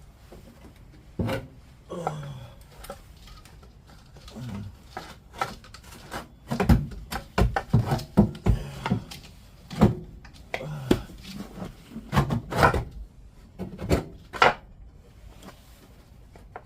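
Irregular knocks, clicks and rubbing of tools and parts being handled during reassembly of the van's engine, in clusters through the middle of the stretch.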